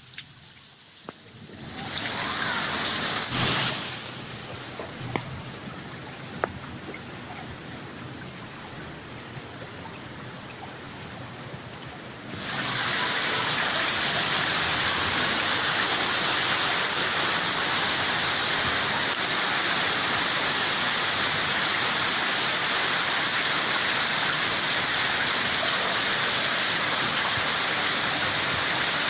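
Heavy rain falling, with a brief loud swell about three seconds in and a few sharp drip-like clicks. About twelve seconds in it steps up abruptly to a steady, louder downpour.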